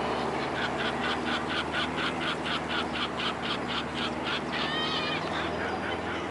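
Gulls calling: a rapid, even run of call notes, about five a second, for nearly four seconds, followed by a few drawn-out rising and falling cries.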